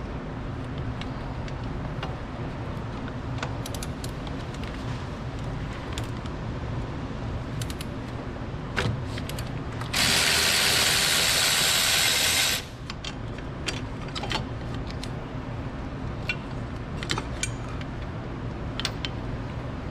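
Hand ratchet wrench clicking as the engine hoist mount bolts on a GM 4.2 L inline-six are loosened, scattered clicks over a steady low hum. About ten seconds in, a loud, even burst of noise lasts nearly three seconds and cuts off suddenly.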